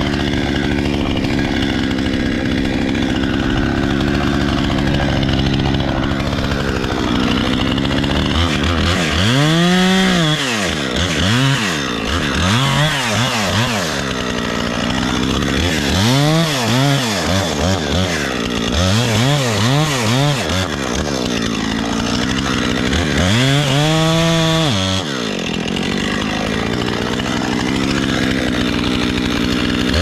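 Husqvarna two-stroke gas chainsaw running hard at high revs for the first several seconds, then revved up and let back down to idle about five times in a row, then running steadily again near the end.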